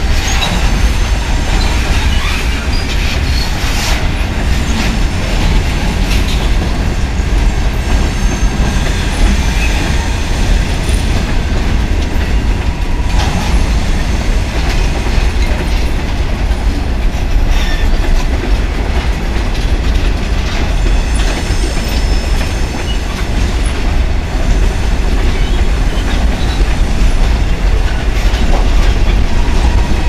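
Freight cars of a passing train rolling by close up: a steady, loud rumble of steel wheels on rail, with occasional clicks at the rail joints and faint wheel squeal now and then.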